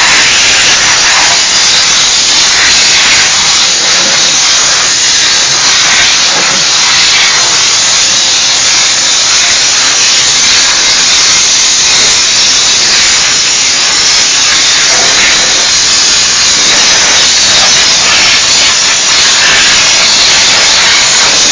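Diesel steam cleaner spraying a loud, steady jet of steam, an unbroken hiss.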